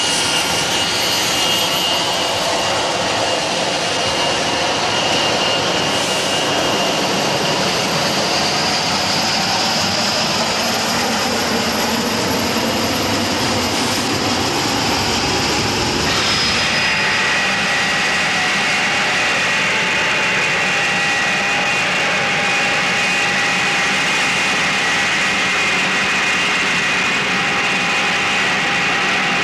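Steady, loud machine noise: a continuous rushing hiss with several high whining tones, which change pitch about halfway through.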